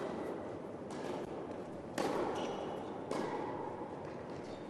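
Tennis rally: a few sharp hits of racket on ball and ball on court, about a second or two apart, each with a short echo off the walls of the indoor hall.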